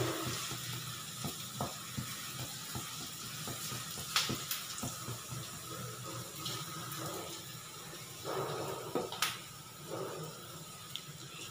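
Chopped onions, curry leaves and dal sizzling in hot oil in a wok: a steady frying hiss. Occasional sharp clicks and scrapes come as the silicone spatula stirs against the pan, the sharpest about four and nine seconds in.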